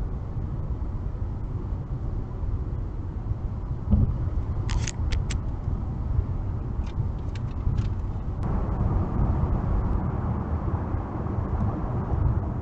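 Steady low road and engine rumble heard from inside a moving car at motorway speed. A thump about four seconds in, then a few short sharp ticks; after about eight seconds the noise turns fuller and louder.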